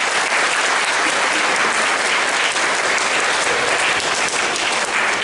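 Audience applauding, a dense, steady mass of hand claps.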